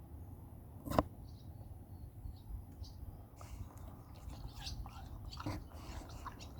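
A beagle biting and chewing at a watermelon: one sharp knock about a second in, then a run of small, irregular crunches and clicks.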